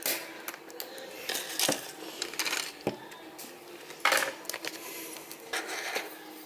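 Plastic supplement tub being unwrapped by hand: the clear plastic shrink band around its lid is torn and peeled off, with crinkling, scraping rustles and sharp clicks and taps as the tub is turned and handled on the desk. The loudest rustle comes about four seconds in.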